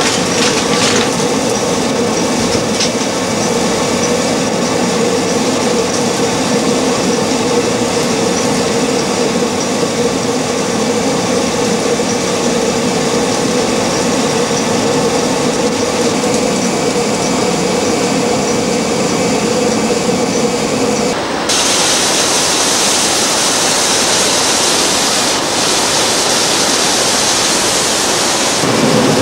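The gearing and drive belt of an 18th-century water-powered corn mill running, with a steady rumble and hum. About two-thirds of the way through, the sound changes suddenly to a brighter rushing hiss, and the hum comes back near the end.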